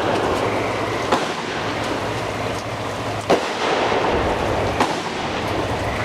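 Three sharp firework bangs, about a second, three seconds and nearly five seconds in, the middle one the loudest, over the steady hiss of heavy rain.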